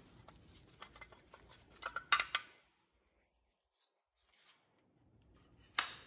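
Light metal clicks and scraping as worn brake pads are slid out of a six-piston Brembo brake caliper, with a cluster of sharper clicks about two seconds in. Near silence follows, then one sharp metallic click near the end.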